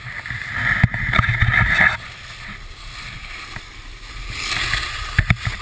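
Wind rushing over a GoPro microphone while descending a ski run, with edges scraping over packed snow, louder in the first two seconds and again past the middle. A sharp knock about a second in and two more near the end.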